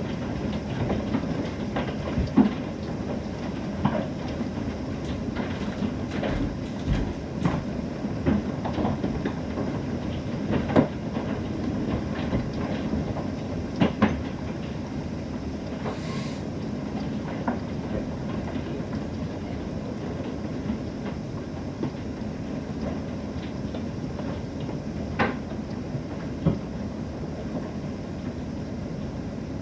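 Heavy rain and large hailstones hitting hard surfaces: a steady rush with sharp knocks scattered irregularly through it, a few of them standing out louder.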